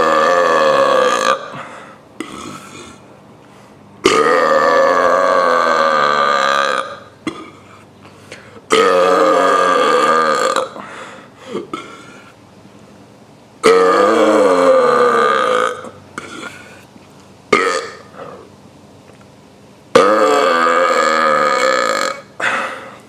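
Deliberate, loud burps made by swallowing air and letting it out: five long drawn-out belches a few seconds apart, each lasting about two to three seconds, with short gulps between them.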